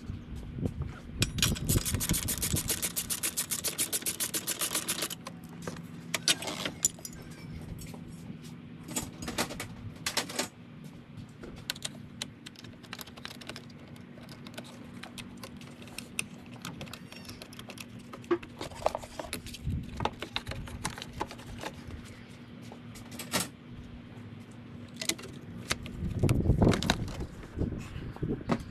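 Hand ratchet clicking rapidly for a few seconds as the battery hold-down nuts are spun off, then scattered metallic clicks and taps from a wrench on the battery terminal clamps. Near the end come heavier knocks and scraping as the car battery is lifted out of its tray.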